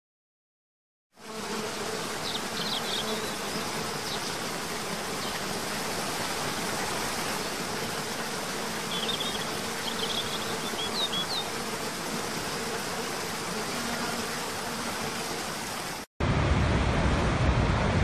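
Steady rushing of a waterfall cascading over rocks, with a faint low hum and a few short bird chirps, starting about a second in after silence. About two seconds before the end it cuts to the louder, deeper rush of Niagara's Horseshoe Falls.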